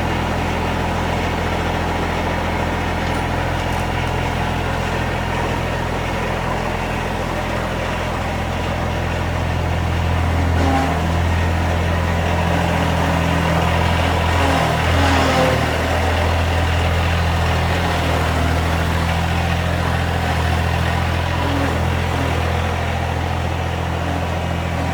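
Riding lawn mower's engine running steadily, with a low even hum that grows a little louder about ten seconds in.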